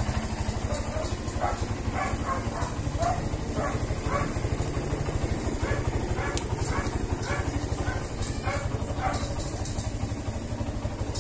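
Kawasaki Barako II motorcycle's air-cooled single-cylinder four-stroke engine idling steadily, with an even, rapid firing pulse.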